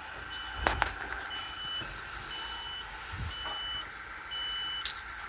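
Electronic warning beeper sounding steady half-second beeps at about one per second, five in all, with a couple of sharp clicks near the start and one near the end.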